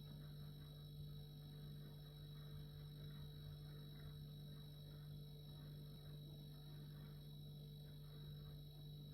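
Refrigerator running: a faint, steady low hum with a light hiss, unchanging throughout.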